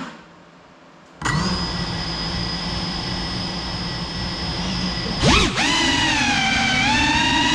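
The brushless motors of a GEPRC CineLog 35 cinewhoop spin up abruptly about a second in and hold a steady whine. A little over five seconds in the pitch sweeps up sharply as the throttle is raised and the quad lifts off. The whine then runs louder and higher, rising and falling with the throttle. Heard through the camera mounted on the drone.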